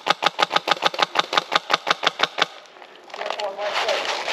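Airsoft gun firing a rapid, evenly spaced string of shots, about six a second, that stops about two and a half seconds in. After it comes a steady rustling noise.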